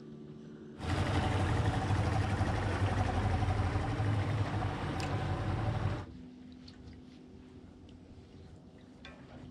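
A boat motor running steadily for about five seconds, starting abruptly about a second in and cutting off suddenly; a much fainter steady hum follows.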